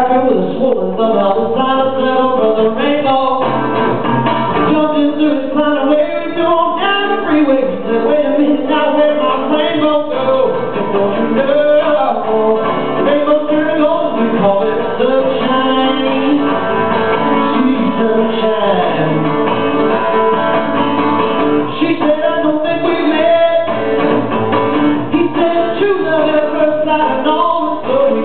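Male singer-songwriter singing live with his own strummed acoustic guitar, heard through a club PA from among the audience.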